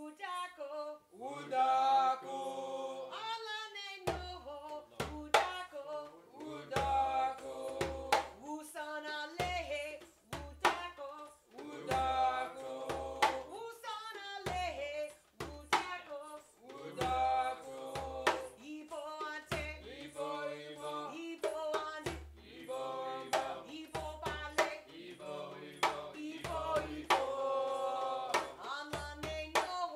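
A woman sings a song, leading a group of djembe hand drums. The drums come in about four seconds in with sharp slaps and deep bass strokes in a steady rhythm under her voice.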